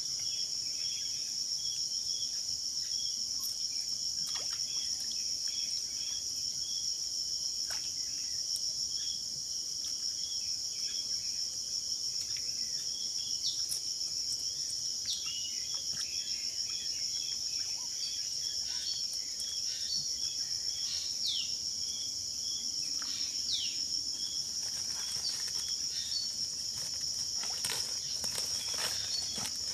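Outdoor insect chorus: a steady high-pitched buzz with a row of regular, evenly spaced chirps beneath it. A few short falling chirps and scattered faint clicks come in over the second half.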